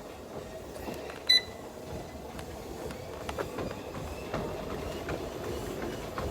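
Treadmill running, with the belt's steady hum and the soft, regular knock of footfalls. A single short, high beep sounds about a second in and is the loudest thing heard.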